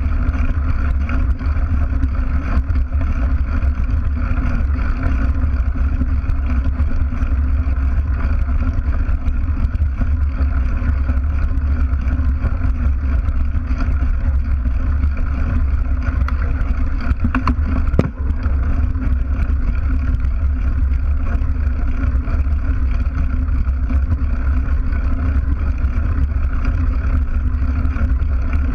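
Steady rumble of a mountain bike's knobby tyre rolling over a gravel dirt track, heard through a camera mounted right by the rear wheel. A single sharp knock comes about eighteen seconds in.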